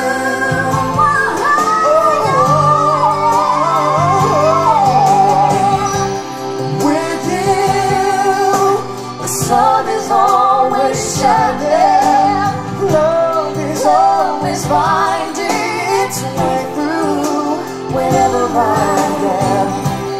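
A slow song with singing, played back through hi-fi loudspeakers and picked up in the room: a gliding vocal melody over steady sustained accompaniment.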